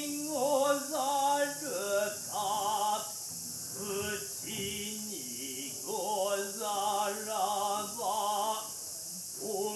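Kyogen actors chanting in sung, stylized voices: short phrases of held, wavering notes that rise and fall.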